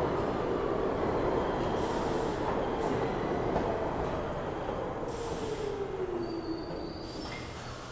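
R62 subway train running into an underground station, its wheels rumbling over the rails and its motor whine falling steadily in pitch as it slows. A few short hisses come through near the middle and the end.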